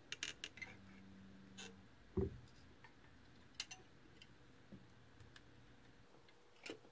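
Small parts and tools being handled during hand assembly: scattered light clicks and taps, a quick run of them at the start, one soft thump about two seconds in, and a sharper click a little later.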